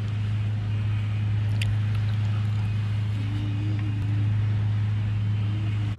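A loud, steady low hum, with a brief high chirp about one and a half seconds in.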